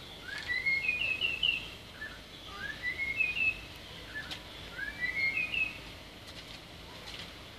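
A songbird singing three short, repeated phrases of quick, rising chirps, each about a second long and roughly two seconds apart.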